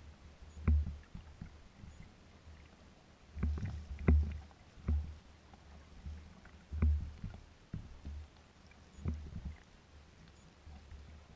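Small waves slapping against a kayak's hull as it drifts under sail. The dull, irregular knocks come roughly every one to two seconds.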